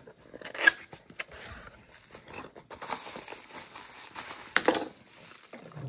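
Packaging being opened and handled: crinkling and rustling with scattered sharp clicks, the loudest snaps about a second in and near the end.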